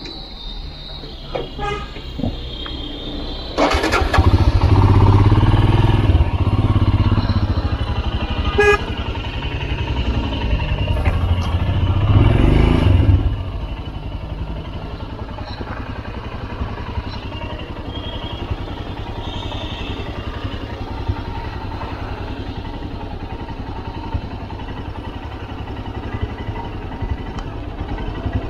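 Motorcycle engine running under load on a rough climb. It is louder and working hard for about ten seconds from a few seconds in, then settles to a steadier, quieter run.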